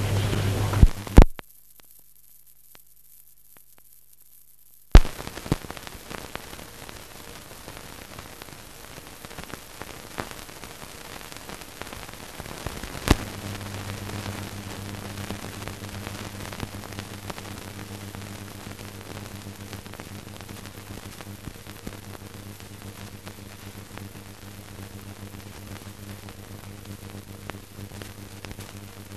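Surface noise of an old newsreel optical soundtrack: a steady hiss with a low hum, and no distinct event sounds. Sharp clicks about a second in and at about five seconds bracket a few seconds of dead silence, and another click at about thirteen seconds brings back a stronger, steady hum.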